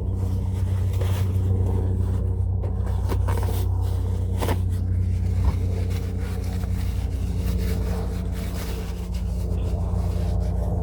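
Steady low motor hum with evenly spaced tones underneath, like an idling engine, with light rubbing and scraping of tissue being wiped around oily metal near the oil filter a few seconds in.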